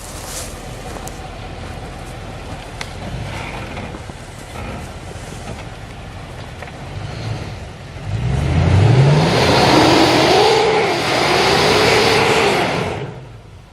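Lexus LX470's 4.7-litre V8 engine running off-road: low and steady at first, then revving up sharply about eight seconds in, with a loud rushing noise for several seconds before it dies away near the end.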